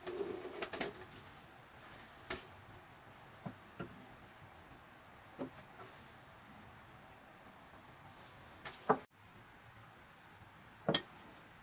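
Crickets or other insects chirping steadily in a regular pulsing rhythm, with a handful of scattered sharp knocks and taps, the loudest near 9 s and 11 s.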